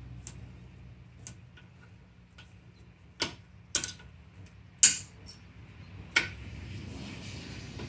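Irregular sharp metallic clicks of a small pointed tool prying thin washers up off a supercharged intake manifold's cores, the loudest clicks coming about three to six seconds in.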